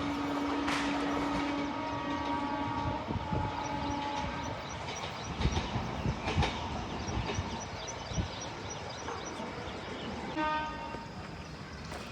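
Passing Indian Railways train: a steady horn blast that stops about four and a half seconds in, then wheels clattering over the rail joints with several sharp knocks, and a brief horn note near the end.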